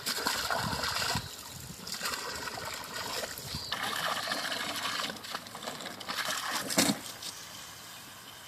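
Water splashing and trickling in stretches of a second or two, with a single sharp knock about seven seconds in.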